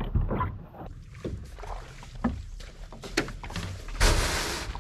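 Kevlar canoe landing on a sand beach: a few light knocks on the hull, then near the end a loud, short scraping rush as the hull slides onto the sand.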